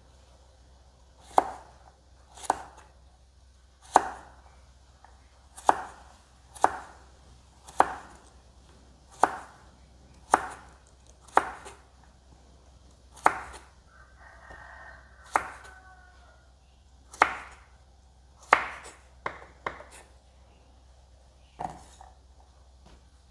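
Kitchen knife dicing carrot on a wooden cutting board: single sharp chops at an unhurried, uneven pace, about one a second, some sixteen in all.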